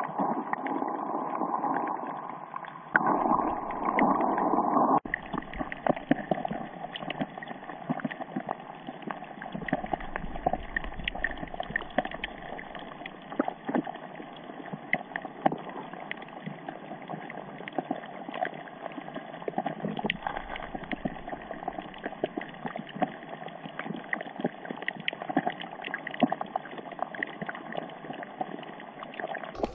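Underwater sound picked up by a camera in its housing: muffled rushing water, louder and sloshing for the first five seconds, then a steadier hiss scattered with many sharp crackling clicks.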